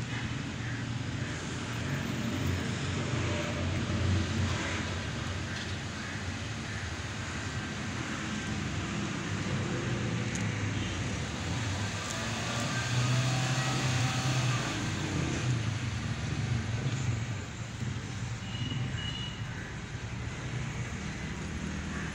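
Steady low rumble of motor vehicles that swells and eases slowly.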